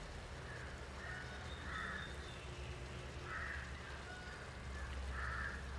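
A crow cawing three times, harsh caws roughly a second and a half to two seconds apart, over a low steady rumble.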